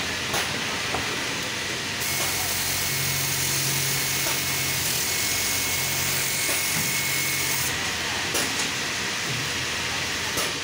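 Automatic back-pocket sewing machine running a stitching cycle on a denim panel: a steady machine whine with a low hum, starting about two seconds in and stopping near eight seconds. Steady background machinery noise runs throughout.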